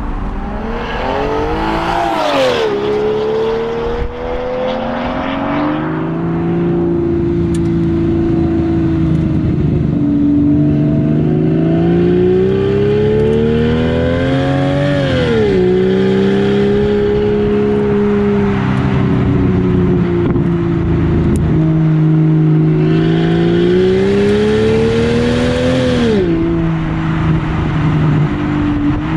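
BMW 760Li's V12 engine running through a straight-piped exhaust with no catalytic converters, pulling hard under acceleration. Its note climbs and then drops sharply at an upshift three times, near the start, about halfway and near the end, holding steady between the shifts.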